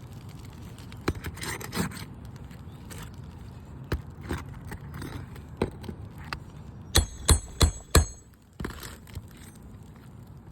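Hand-tool work on a brittle asphalt-shingle roof: scattered scraping and light knocks, then four sharp metallic strikes in quick succession about seven seconds in.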